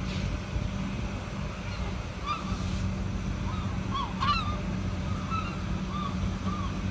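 Gulls calling overhead, many short yelping cries scattered throughout and bunched together about four seconds in, over a steady low rumble.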